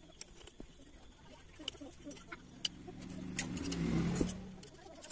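Light metallic clicks and clinks of a wrench working the cylinder-head nuts on a scooter engine. A low hum swells up about halfway through, then stops about a second before the end.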